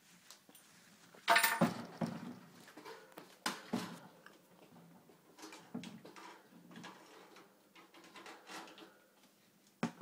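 A hamster clambering about on a metal wire cage floor right by the microphone: irregular clicks, scrapes and rattles of the bars, with louder knocks about a second and a half in, about three and a half seconds in, and near the end.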